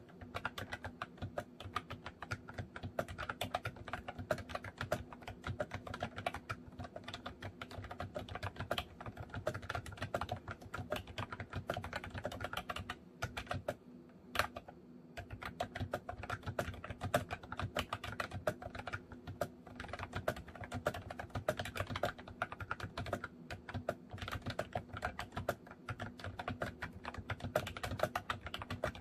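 Continuous fast typing on a MOFii Retro Style Candy keyboard: a dense run of key clicks with a short pause about halfway through.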